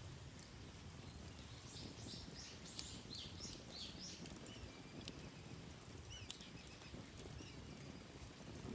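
Campfire crackling, with scattered sharp pops over a low steady rush. A songbird sings a quick run of high notes about two seconds in, and gives a few more short sliding calls around six seconds in.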